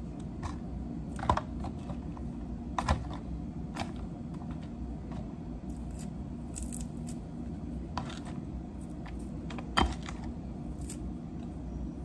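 Lettuce leaves being snapped and torn apart by hand, pieces dropping into a plastic bowl: scattered crisp snaps and clicks, one every second or two, over a steady low room hum.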